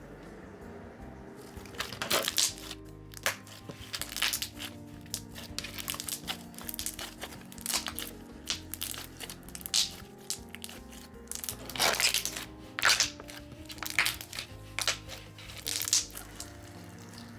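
Slime squished and pressed by hand, giving irregular crackling, crunching pops, with soft background music underneath.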